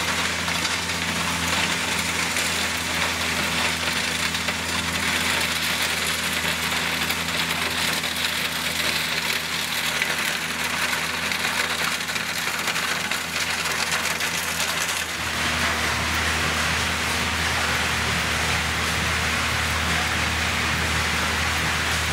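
A diesel rail track-maintenance machine working along the line, its engine running steadily under a loud, continuous gravelly hiss of ballast stones and dust being thrown up. About two-thirds of the way through, the engine's low tone changes abruptly as the machine passes.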